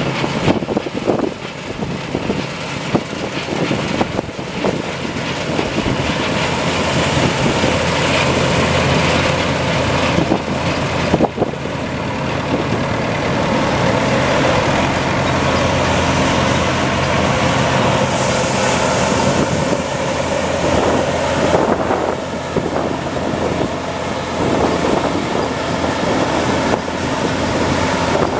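A Deutz-Fahr 1102 combine harvester and a Leyland 255 tractor running steadily side by side while the combine harvests barley and unloads grain into the tractor's trailer.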